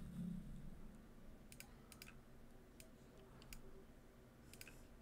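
Faint, scattered clicks of a computer mouse and keyboard, about seven, some in quick pairs, as commands are entered in 3D modelling software.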